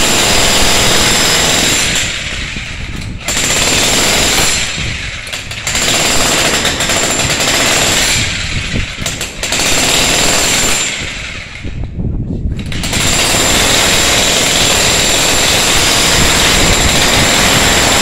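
Ryu RDH 50 corded electric demolition hammer breaking up a reinforced concrete floor slab, chisel pounding rapidly. It eases off briefly four times, then runs without a break through the last five seconds.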